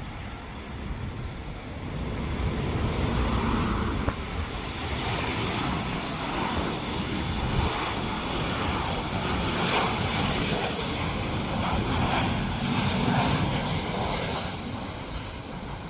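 Boeing 737-800 airliner's CFM56 jet engines on final approach with gear down, a steady rushing engine noise. It grows louder about two seconds in as the plane comes low overhead and eases off near the end.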